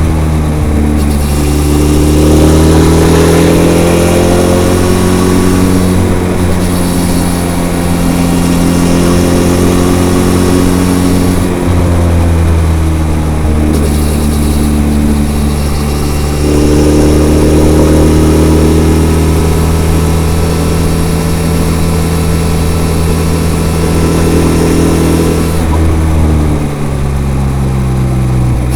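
Benelli TRK 502's 500 cc parallel-twin engine running through its stock, unmodified exhaust under way. The pitch rises under acceleration about two seconds in and again around seventeen seconds, and drops around twelve seconds and near the end as it slows.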